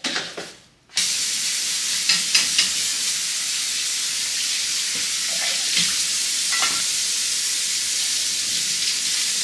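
Kitchen faucet running a steady stream of water into the sink while dishes are rinsed under it. The rush of water starts suddenly about a second in, with a few light clinks of dishes over it.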